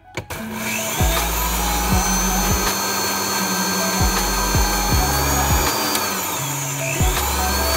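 Vitamix Vita-Prep 3 commercial blender switched on and running, its motor whirring loudly as the blades chop watermelon chunks. The whine's pitch dips and recovers about six seconds in.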